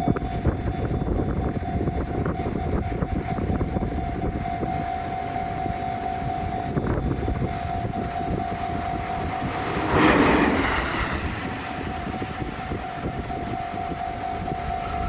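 Train running over a level crossing while the Japanese crossing's electronic warning bell rings steadily. About ten seconds in, a loud noisy surge briefly covers the bell.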